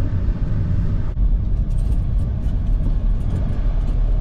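A car driving, heard from inside the cabin: a steady low rumble of engine and road.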